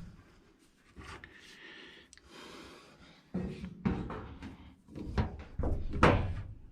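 A series of knocks and clunks from things being handled and set down, with some rustling between them. The loudest clunk comes about six seconds in.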